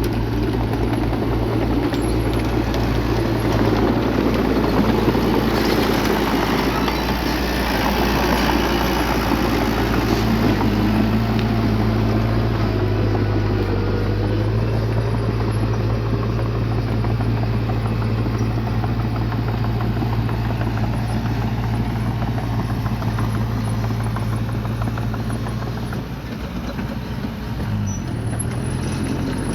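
Bulldozer's diesel engine running steadily under work, its note dipping and coming back up near the end.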